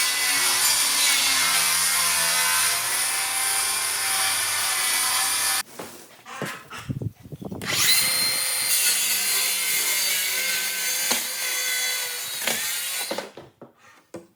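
Power saw cutting through wood twice, each cut lasting about five seconds and stopping abruptly, with a few knocks and handling sounds in the pause between cuts.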